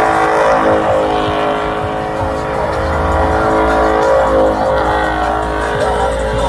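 A car doing donuts: the engine revs hard, rising and falling, while the rear tyres squeal and spin on the pavement.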